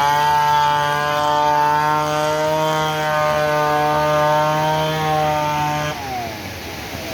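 A small engine running at a steady, buzzing pitch; about six seconds in its pitch falls away and it grows quieter, as it passes and moves off.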